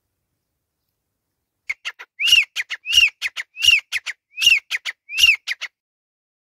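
Grey francolin calling: a quick run of short notes builds into five loud notes about two-thirds of a second apart, each rising and falling in pitch and followed by quick clipped notes. The call starts about two seconds in and stops shortly before the end.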